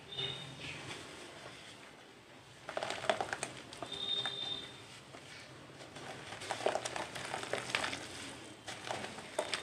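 Hands crumbling a dry, chalky white cement chunk over a clay pot: gritty crunching and crackling in spells, starting about three seconds in, with short pauses between.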